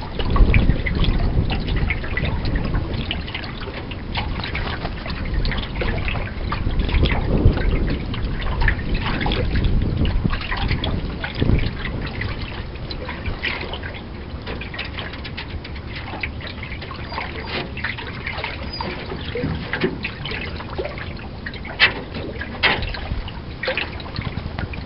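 Water lapping and trickling against a Grumman aluminum canoe's hull, with wind rumbling on the microphone. Two sharper slaps stand out near the end.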